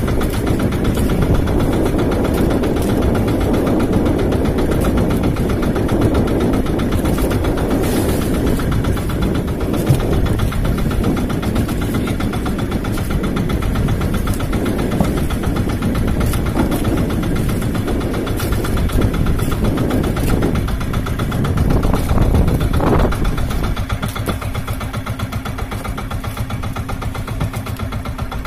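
Engine of a wooden outrigger fishing boat running steadily while under way, with rushing water and wind over it. Near the end the engine's low rumble eases and the overall sound drops a little.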